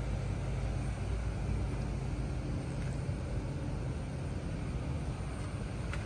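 Mini excavator's small diesel engine idling steadily, a low even rumble.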